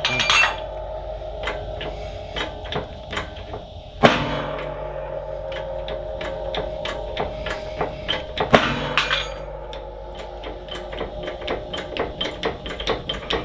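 A hydraulic shop press works on a steel shaft and bearing in a diff housing. There is a run of metal taps and clicks, and two heavy clanks, about four seconds in and again past eight seconds, each followed by a ringing metallic tone.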